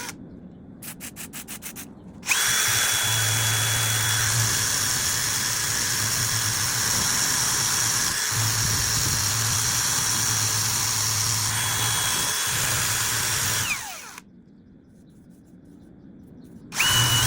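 Electric drill with a rivet locked in its chuck: a quick run of clicks, then the drill starts about two seconds in, runs steadily at speed for about eleven seconds with a high whine, and winds down with a falling whine. It starts again briefly near the end.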